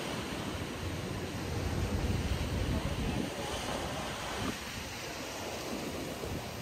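Sea surf washing on a shore with wind rumbling on the microphone; the surge is loudest about two seconds in.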